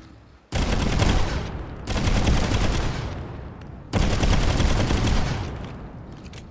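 Enforcer pistol (.30 Carbine) firing three strings of rapid shots: the first starts about half a second in, the next two about 2 and 4 seconds in, and each trails off afterwards.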